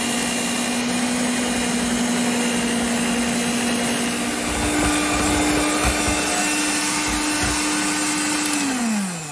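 Electric hand mixer whipping cake cream in a glass bowl, its motor running with a steady whine. The pitch steps up a little about four and a half seconds in, then winds down and stops near the end.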